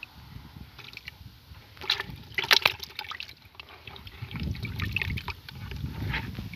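Water sloshing and splashing in a bucket as a hand reaches in and grabs live fish, chub and gudgeon, with the loudest splashes about two and a half seconds in. Low rumbling handling noise follows over the last couple of seconds.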